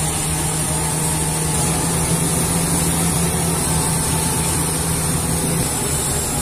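Crawler bulldozer's diesel engine running steadily under load as the machine pushes across the ground.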